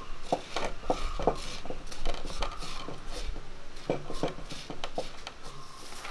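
A spoon clinking and scraping against a metal dish, about a dozen light knocks at an irregular pace.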